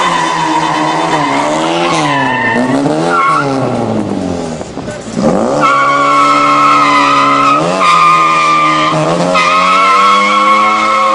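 Car spinning donuts on asphalt: the tyres screech in a steady high squeal over the engine revving up and down. About four seconds in, the engine falls away and the sound dips briefly; then it revs back up and the screech returns louder and holds.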